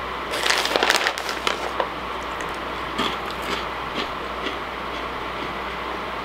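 Crinkling and rustling of a plastic snack bag as a hand reaches in and pulls out a piece, dense for about a second and a half, then a few scattered softer crackles.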